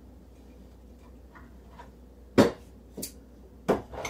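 Three sharp knocks about half a second apart in the second half, from things being moved about in a kitchen cupboard while an ingredient is searched for, after a quiet stretch of room tone.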